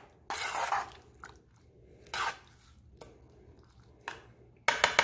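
A spoon scraping and stirring through a thick cream sauce with diced calabresa sausage in a nonstick pan, giving a few separate wet scrapes and squishes, with a quick run of clicks near the end.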